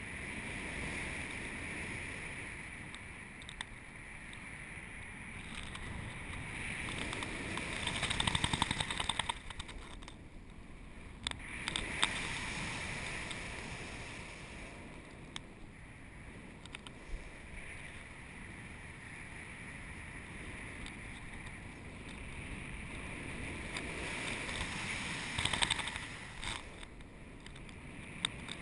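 Air rushing over the camera's microphone in paraglider flight, swelling and easing as the wing swings, loudest about eight seconds in and again near the end. A few sharp clicks cut through, about eleven and twelve seconds in.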